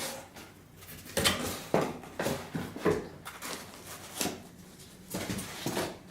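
A cardboard box being handled and opened: irregular knocks, scrapes and rustles of packaging.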